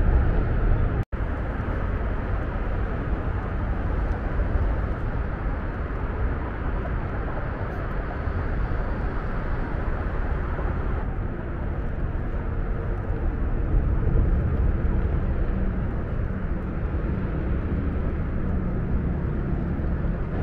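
Steady outdoor rumble of distant traffic, heaviest in the low end, cutting out for an instant about a second in.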